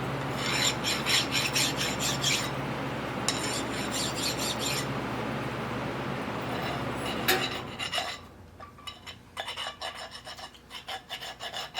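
A small metalworking machine runs with a steady motor hum and a rasping metal-cutting noise, with two spells of rattling metallic chatter. About seven seconds in it stops after a sharp click, and light metal clinks and taps follow.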